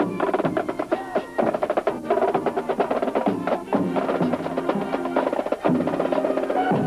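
Marching band music: snare and bass drums beating with sustained brass notes.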